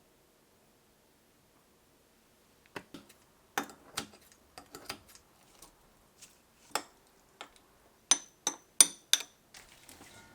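Dishes and utensils clinking and knocking as they are handled: an irregular run of sharp taps starting a few seconds in, then four bright, ringing clinks close together near the end.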